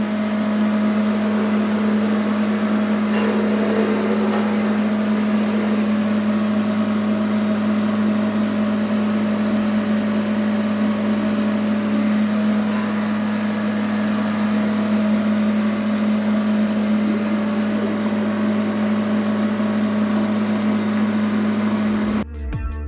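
Steady electrical machine hum from a running CNC plasma cutting setup: an even drone with an unchanging low pitch. Music cuts in suddenly near the end.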